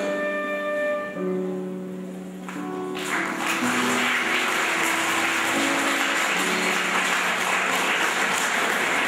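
Instrumental music with held melody notes fades out, and about three seconds in an audience starts applauding and keeps clapping steadily.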